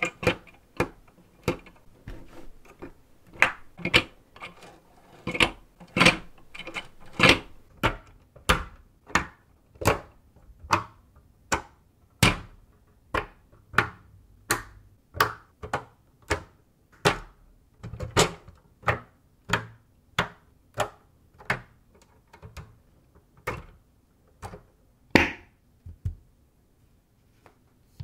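Lego Technic pieces clicked together by hand as pins, liftarms and axles are pressed into place: a steady run of sharp plastic clicks, about one or two a second, stopping near the end.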